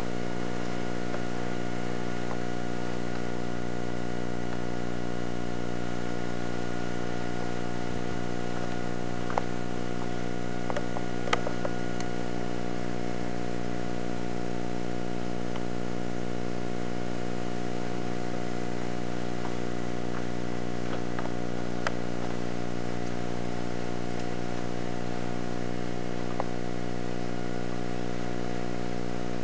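A steady droning hum made up of several held tones that do not change, with a few faint clicks scattered through it.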